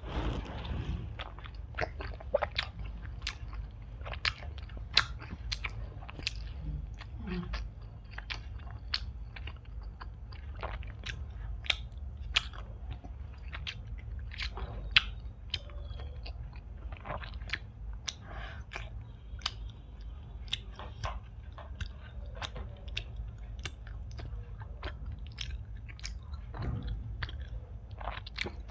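Close-miked chewing of Indian sweets: irregular wet mouth clicks and smacks, several a second, over a steady low hum.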